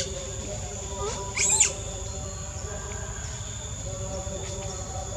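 A long-tailed macaque gives a short, high-pitched squeal about a second and a half in, after a briefer chirp at the very start, over a steady high drone of insects.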